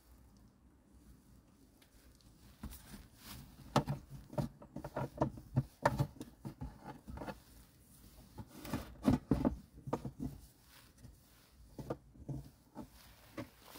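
Hands fitting a plastic faucet-style portable water-bottle pump onto its tubing and setting it on a wooden cabinet top: a run of light clicks, taps and knocks, coming in two main clusters with a few more near the end.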